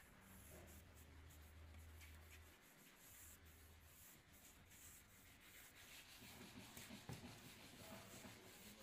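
Faint rubbing of dark wood stain being wiped by hand onto a wooden cabinet panel, growing busier and scratchier from about six seconds in. A low hum runs under the first few seconds.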